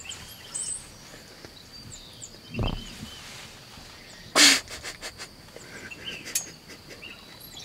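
Songbirds chirping over a steady high insect hum, with a low rustle about two and a half seconds in and a brief, loud burst of noise about four and a half seconds in.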